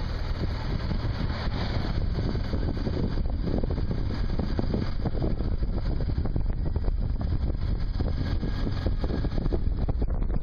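Wind rushing over the microphone of a moving motorcycle, over a steady low rumble of engine and road.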